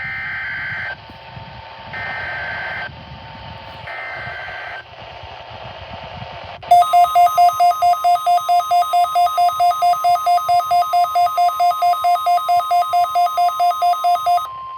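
Emergency Alert System SAME header: three one-second bursts of warbling two-pitch data tones, about two seconds apart. Then, about seven seconds in, a loud alert begins: a steady tone with a rapidly pulsing two-pitch beep over it, about four to five beeps a second, stopping just before the end.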